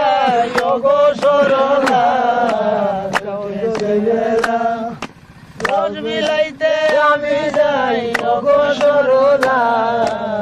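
A group of men singing a Bengali Baul folk song together, long held notes with a wavering pitch, over a steady sharp percussion beat of about three strokes every two seconds. The singing breaks off briefly about five seconds in.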